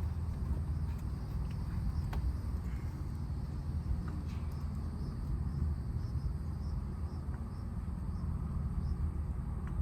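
Steady low rumble of outdoor background noise, with an insect chirping faintly and repeatedly in the second half and a few light clicks.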